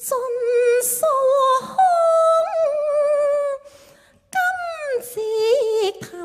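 A woman sings a Cantonese opera (yueju) phrase, holding long, drawn-out notes with vibrato. Her line breaks off briefly a little under four seconds in, then resumes with a note that glides downward.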